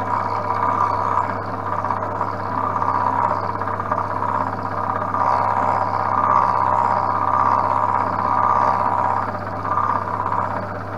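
Vertical milling machine running, its end mill cutting a nylon workpiece that is turned by hand on a spin indexer. A steady motor hum sits under a higher cutting sound that swells and eases as the work is fed round.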